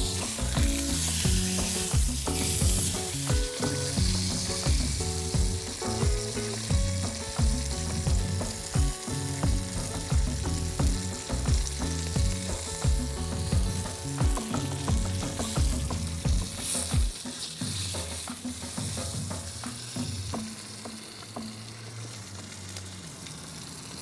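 Beef steak sizzling in beef tallow in a small cast-iron plate on a single gas burner, a steady frying hiss.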